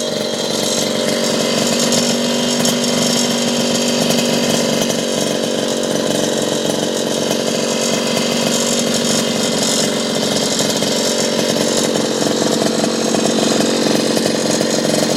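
Yamaha QT50 moped's small two-stroke engine with a Jemco aftermarket exhaust, idling steadily at one even pitch, heard close up.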